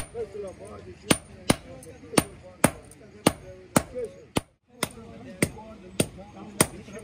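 Sledgehammer blows striking red-hot leaf-spring steel on an anvil as it is forged into a billhook, sharp strikes in a steady rhythm of about two a second, with a short silent gap a little past halfway.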